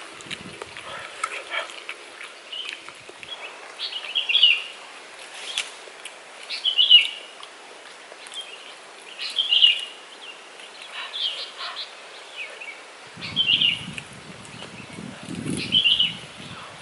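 A bird calling over and over: a short, chirpy call every two to three seconds. Low handling and rustling noises come in near the end.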